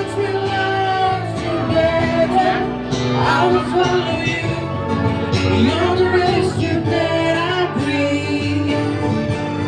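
Live acoustic band with a singer and acoustic guitar, amplified through a pair of 15-inch active PA speakers, playing a slow love ballad.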